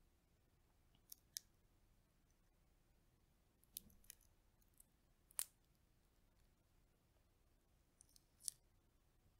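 Crisp shells of roasted chestnuts cracking and snapping under the fingers as they are peeled. The cracks come in small clusters, about a second in, again from about four to five and a half seconds, and near the end, with near silence between.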